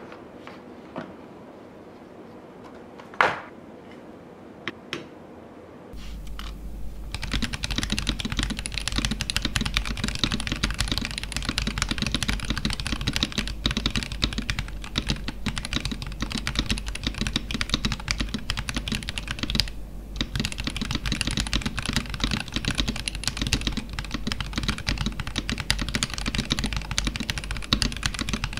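Typing on a Keychron V2 mechanical keyboard fitted with Akko Jelly White switches. A few separate keystrokes come first, one much louder, then about six seconds in steady fast typing begins and runs on, broken only by a brief pause about two-thirds of the way through.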